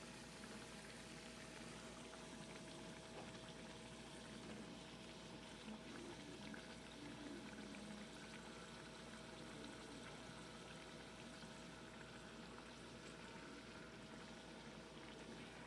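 Dough strips frying in hot corn oil in a skillet: a faint, steady sizzle with fine crackling.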